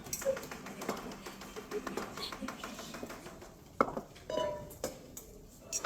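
Kitchen clatter: dishes and utensils clinking and knocking in scattered sharp clicks, with a couple of short ringing pings a little past the middle.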